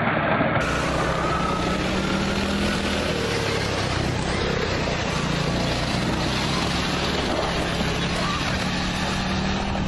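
Tractor engine running steadily at a constant pitch.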